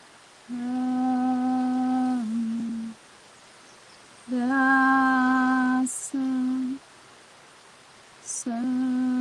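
A woman humming three long, steady, low notes, each about two seconds long and dipping slightly in pitch at the end, with short hissy breaths between them.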